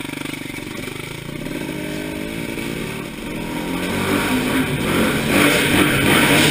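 Dirt bike engine pulling away from idle and accelerating, its pitch climbing, then growing louder and rougher as the bike rides into a corrugated steel culvert tunnel.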